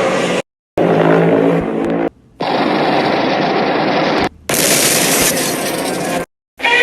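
Loud monster-fight sound effects spliced together in four abrupt clips, each cut off by a brief silent gap. The clips are dense and noisy, and the second carries a steady pitched tone.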